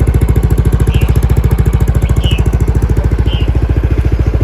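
Yamaha NMAX scooter's single-cylinder engine idling steadily, with an even, fast pulse of about a dozen beats a second.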